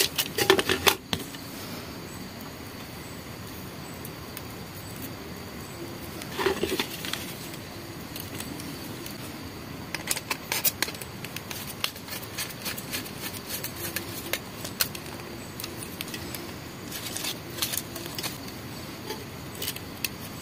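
Scattered clicks and light rattles of a screwdriver working the terminal screws of a plastic two-gang, two-socket outlet plate while the plate and its wires are handled, in small clusters near the start, about a third of the way in, and twice in the second half.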